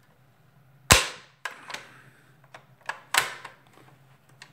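Plastic handle of a Dyson DC37 vacuum cleaner clicked onto the body over its spring: two sharp plastic snaps a little over two seconds apart, the first the loudest, with lighter clicks between.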